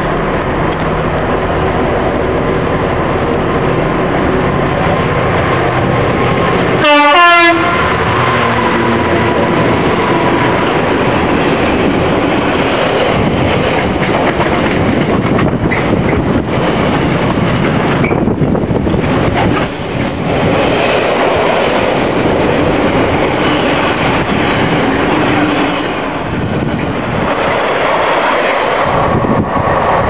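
A container freight train running through a station at speed, its wheels and wagons making a continuous rumble and clatter. About seven seconds in, the locomotive's horn gives one brief, loud blast.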